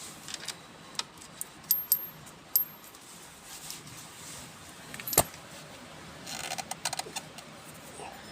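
Small metal objects clinking and clicking at irregular intervals, with one sharper click about five seconds in.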